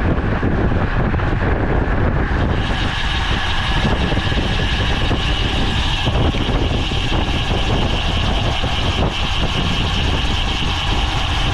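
Steady wind and road noise from a road bicycle at race speed, a loud rush heavy in the low end on a bike-mounted camera's microphone. A brighter hiss joins about two and a half seconds in and holds.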